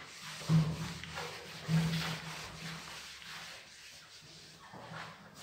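Handheld whiteboard eraser rubbing marker off a whiteboard in a series of wiping strokes, loudest about half a second in and again near two seconds.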